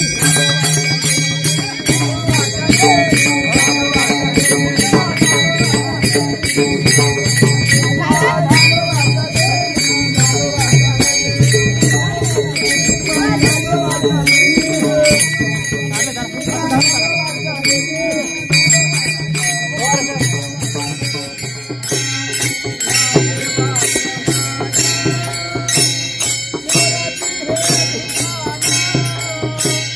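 Varkari bhajan: quick, steady strokes of brass taal hand cymbals ringing over group singing. The sound thins and changes character about two-thirds of the way through.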